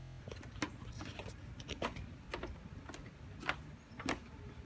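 Soft, irregular clicks and taps, roughly two a second, over a low steady rumble.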